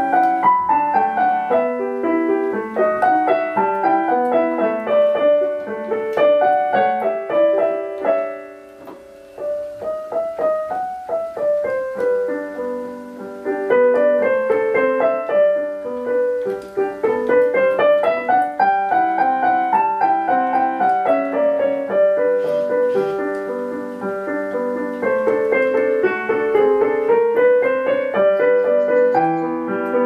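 Background piano music: a melody of many short notes in flowing runs, with a brief quieter moment about eight seconds in.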